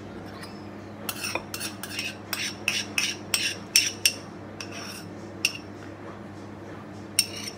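Metal spoon scraping and clinking inside a ceramic bowl as thick whipped coffee froth is scraped out into a glass: a quick run of short scrapes and clinks starting about a second in and lasting some three seconds, then a few single taps.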